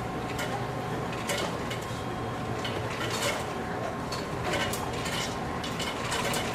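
Fast-food restaurant ambience: frequent clatter and clinks of dishes and cutlery over a steady background hum.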